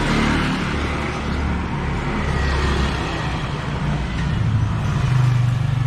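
Street traffic: motor vehicles passing close by, engines running with a steady low hum and tyre and road noise. A stronger engine hum comes in about four seconds in.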